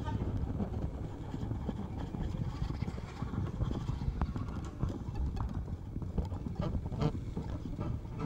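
Experimental live sound-art improvisation: a dense low rumbling texture with scattered irregular knocks and clicks, with no steady beat or tune.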